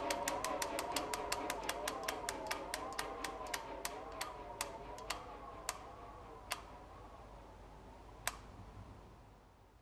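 Bicycle freewheel ticking as the wheel spins down: sharp clicks, about three a second at first, slowing and thinning out until the last one near the end. Under it a wavering electronic drone fades away.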